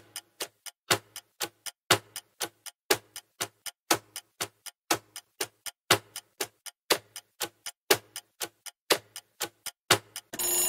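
Countdown-timer clock sound effect ticking, about four ticks a second with a louder tick on each second, as the quiz timer runs down from ten. Near the end a ringing alarm bell starts, signalling that time is up.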